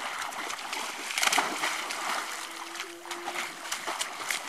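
Lurchers splashing and paddling through shallow lake water, one swimming out after a floating toy. Irregular splashes, loudest about a second in.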